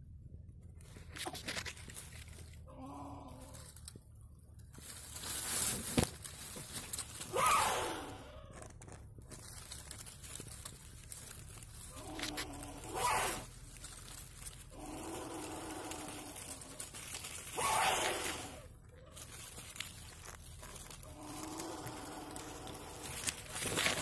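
Coucal chick hissing harshly in defence, a series of raspy hisses every few seconds, each dropping in pitch.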